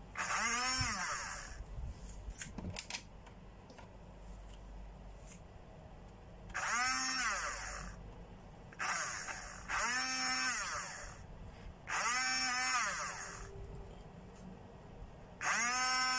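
Two small brushed DC motors, coupled shaft to shaft by a plastic tube, whirring in short spells about five times as the supply wires are touched together and released. Each spell is a whine that rises as the motors spin up and falls away as they coast down, while the second motor, driven as a generator, lights a small bulb.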